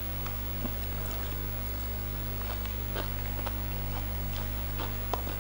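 Faint eating sounds, with scattered small clicks and smacks of chewing and fingers in food, over a steady low hum.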